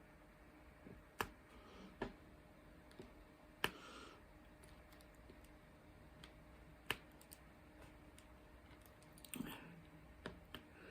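Scattered sharp clicks and taps a second or more apart, with a brief rustle about four seconds in and a cluster of clicks near the end: the small plastic tools of diamond painting, a drill pen and drill tray, being handled on the table.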